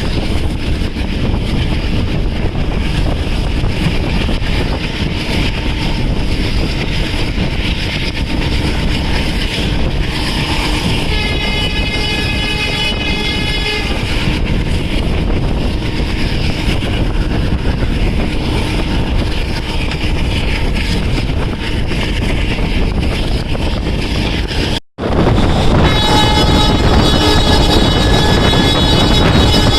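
Passenger train running, with a steady rumble of wheels on track heard from aboard a coach. About eleven seconds in, the WDM3D diesel locomotive's horn sounds for about three seconds. After a brief cut near the end the sound comes back louder, with a long steady horn-like tone.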